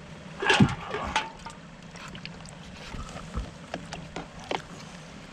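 A brief splash with a rattle about half a second in, then a string of light clicks and knocks over a steady low hum.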